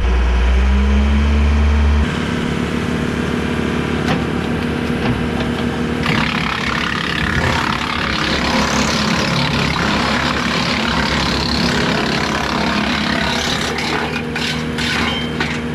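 Tractor engine revving up and running, driving a Woodland Mills WC68 PTO-driven wood chipper. About six seconds in, a loud rushing whir from the chipper joins the engine, and a few sharp clicks come near the end.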